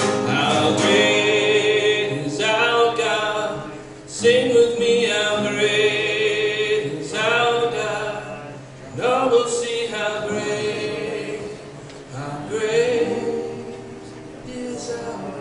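A man singing a slow worship song in held phrases with vibrato, accompanied by acoustic guitar.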